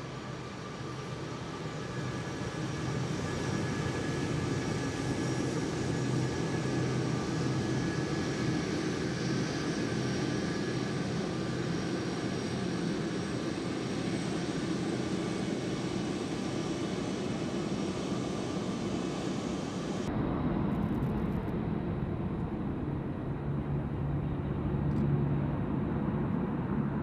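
Turbofan jet engines of an RAF C-17 Globemaster III running steadily, a broad rush with faint high whining tones. About three-quarters of the way through the sound switches abruptly to a duller, lower jet sound with a strong low hum, as the aircraft flies overhead.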